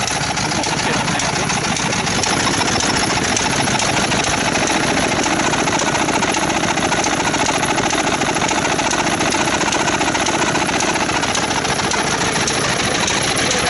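Rare Kyowa-type medium-speed Japanese stationary farm engine running steadily with an even, rapid beat.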